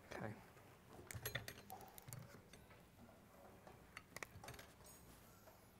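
Faint scattered clicks and light knocks of a moped engine's metal crankcase halves being handled and fitted together over the crankshaft, with a small cluster of sharper clicks around four seconds in.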